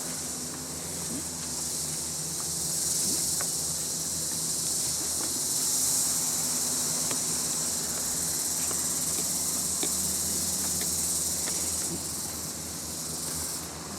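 Dense insect chorus: a high, steady, shrill hiss that swells a little partway through, with a few faint scattered clicks underneath.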